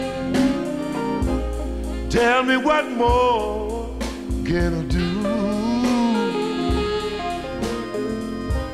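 A blues song playing as background music, in a stretch between sung lyrics.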